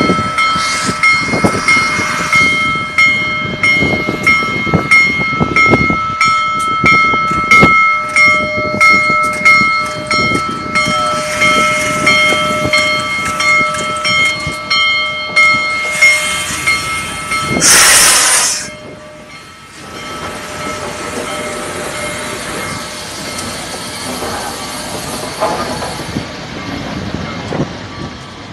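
Union Pacific Big Boy steam locomotive No. 4014 working slowly past at close range, its exhaust beating in slow, regular chuffs with a steady high-pitched tone over them. About 18 s in a loud hiss of steam bursts out for a second, and after it the passing locomotive is a quieter, even rumble.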